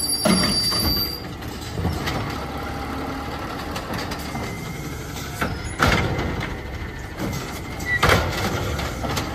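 Natural-gas automated side-loader garbage truck running while its hydraulic arm grabs a wheelie cart, lifts it and tips it over the hopper. Three loud clanks from the cart and arm: near the start, about six seconds in and about eight seconds in.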